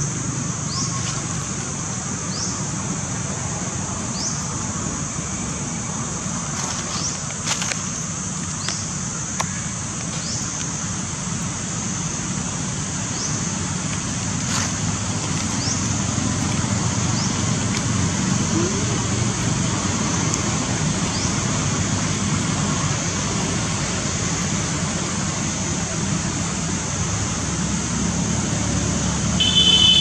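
Outdoor ambience: a steady high-pitched drone, with a short chirp that repeats every second or two, over a low steady rumble.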